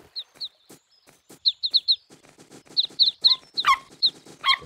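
Goslings peeping: short high chirps that fall in pitch, coming in quick runs of two to four, with light pattering ticks between them. Near the end come two longer wavering calls.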